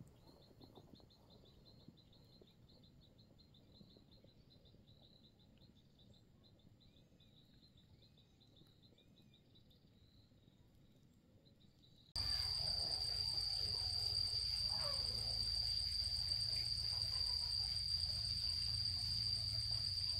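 Faint insects trilling in a quick pulsing rhythm with a few short bird chirps. About twelve seconds in there is an abrupt cut to a much louder, steady high-pitched insect drone over a low hum.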